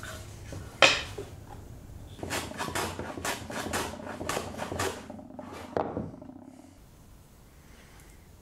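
A hand plane knocks down onto the wooden box about a second in. It is followed by a quick run of about ten short planing strokes shaving bog oak and maple, about three a second, and one last stroke near six seconds.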